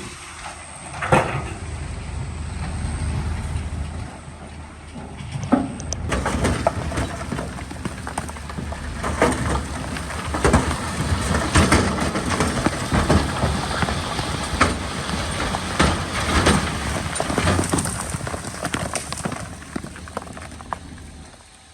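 Crawler bulldozer at work: a steady low diesel engine rumble under a dense run of cracks, knocks and clatter from its steel tracks and the rock and soil it is pushing, with a sharp knock about a second in.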